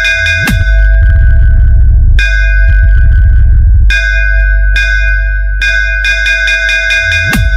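Electronic DJ sound-check music: a ringing bell-like riff struck in quick repeated runs over a constant heavy sub-bass. A falling bass sweep drops about half a second in and again near the end.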